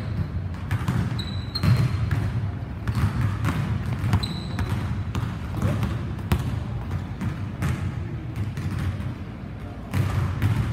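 Basketball dribbled on a hardwood gym floor, repeated bounces, with short high sneaker squeaks three times in the first half.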